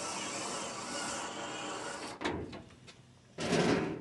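Cordless electric screwdriver driving a screw into the sheet-metal frame of a portable shed: a grinding run of about two seconds that stops with a knock. Near the end comes a short, louder thump and rustle of metal being handled.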